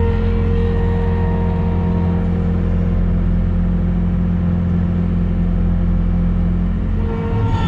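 Engine of a construction machine running steadily at constant speed, with a low drone and a steady whine above it.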